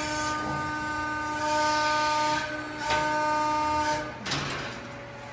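CNC servo press brake (8-foot, 145-ton) running a bend: the ram drive gives a steady pitched whine for about four seconds as the ram comes down and folds the steel sheet, with a brief dip about three seconds in, then stops.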